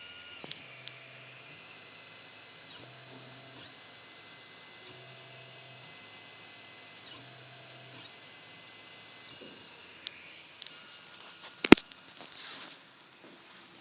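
3D printer's stepper motors whining in steady tones as the axes move, in runs of about a second with short pauses between them. A sharp click comes near the end.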